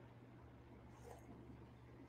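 Near silence: room tone with a steady low hum, and faint soft sounds of a sip from a coffee mug about a second in.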